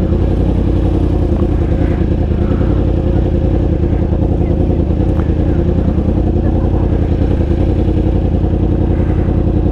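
2018 Yamaha R1's crossplane inline-four, fitted with a Competition Werkes aftermarket exhaust, running at a steady, unchanging pitch.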